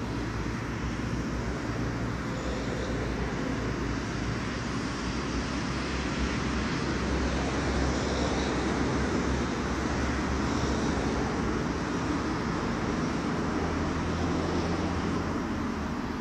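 Steady outdoor noise, a low rumble under a hiss, with no distinct events.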